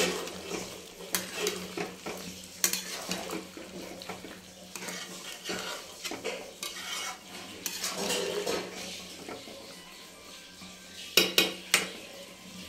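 Spatula stirring and scraping mutton pieces around a metal kadhai as they fry in thick masala, the curry sizzling underneath. Two sharp clacks against the pan come a little before the end.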